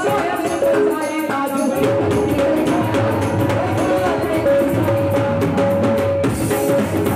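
Upbeat dance music with a steady drum beat and a held melody line; the bass comes in about two seconds in and breaks off briefly near the end.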